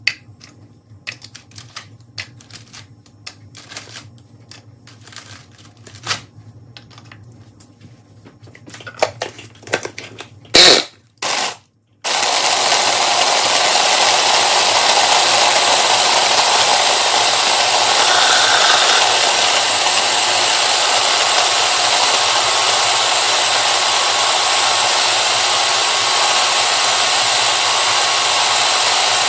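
Light clicks and rustles of Oreo cookies being handled, two loud knocks about eleven seconds in, then an electric food processor switches on and runs steadily, grinding the cookies into crumbs for a cheesecake base.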